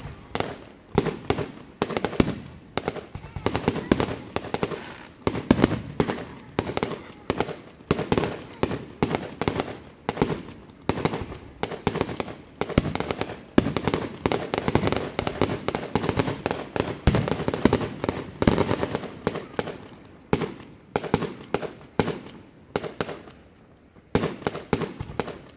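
Aerial fireworks display: shells bursting in a rapid, near-continuous barrage of bangs, thinning out over the last few seconds.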